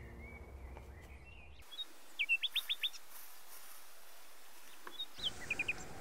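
A small bird calling: a quick run of about five high, falling notes about two seconds in, and a shorter run of three or four near the end, over faint open-air ambience.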